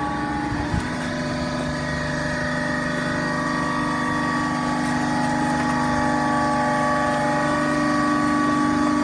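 Hydraulic baling press running, its motor and hydraulic pump giving a steady hum with a whine above it that slowly grows louder. There is one short knock about a second in.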